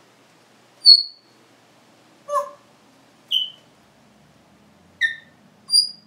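African grey parrot giving five short, loud whistles and squeaks, each at a different pitch, spaced irregularly. The second is lower and harsher, and the first and last are the highest.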